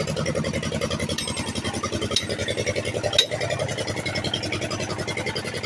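A motor running steadily with a rapid, even pulse, and two sharp knocks about two and three seconds in.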